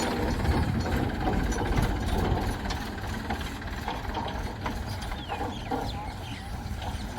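Heavy diesel engine running steadily at low revs, with faint bird chirps above it.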